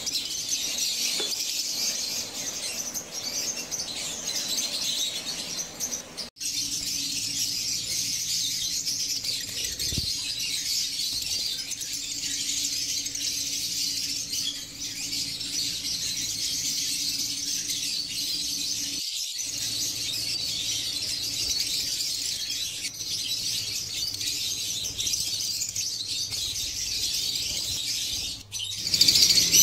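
Lovebirds chattering with continuous high-pitched chirps and squeaks, broken by brief dropouts where clips are joined, over a faint low hum.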